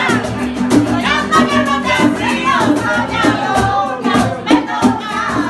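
Women singing along to upbeat music with a quick, steady beat of sharp strokes.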